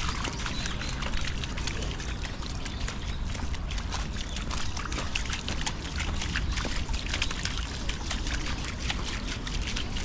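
A husky's paws splashing and stepping through a shallow, trickling stream over wet stones, heard close up from a camera on its collar, with many small splashes and clicks over a low rumble.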